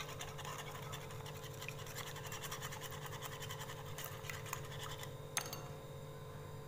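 Wire balloon whisk beating eggs in a glass bowl: a fast, scratchy ticking of the wires against the glass. It stops about five seconds in with a single sharp tap.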